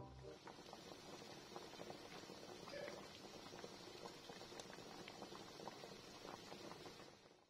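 Water boiling in a steel stockpot with pieces of corn on the cob: faint, continuous bubbling with many small pops.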